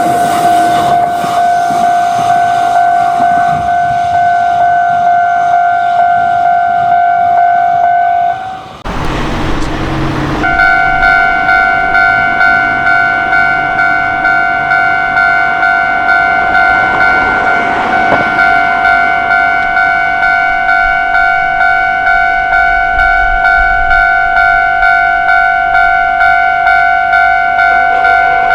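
Japanese railroad crossing warning bell ringing its fast, even 'kan-kan' tone. About nine seconds in it breaks off for a second or so of rumbling noise, then rings on at a slightly different pitch with a low rumble underneath.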